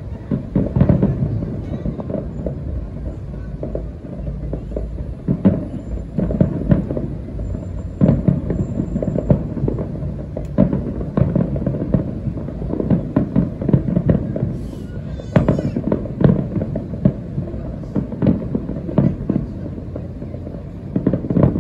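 Distant fireworks finale: aerial shells bursting in a rapid, irregular run of booms, several a second at the busiest. The distance makes the booms muffled and deep.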